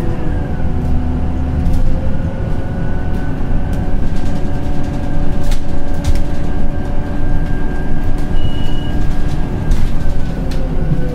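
Scania Citywide LFA articulated bus running on compressed natural gas, heard from inside the cabin. A steady engine and drivetrain whine rises in pitch over the first few seconds, holds, and falls away near the end, over a low road rumble with scattered rattles from the body and fittings. A short high beep sounds about eight seconds in.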